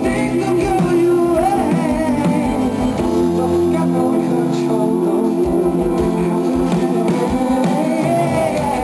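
Live pop band performance: guitars and band playing steadily, with a male voice singing at times.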